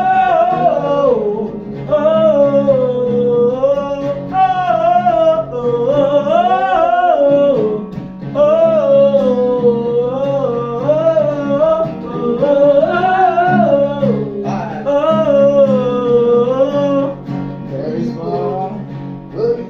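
Gospel prayer song: a voice sings long, drawn-out wordless "oh" phrases that bend up and down in pitch, over a steady instrumental accompaniment.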